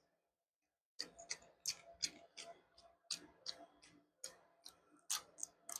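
Close-miked chewing: a run of sharp wet mouth clicks and smacks, about two to three a second, starting about a second in.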